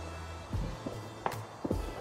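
Music with a steady low bass and sharp percussive hits.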